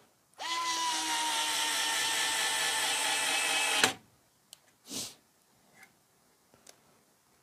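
Bosch Professional cordless screwdriver motor running steadily for about three and a half seconds as it drives a screw into soft wood, then stopping suddenly. A few faint clicks and a brief soft rustle follow.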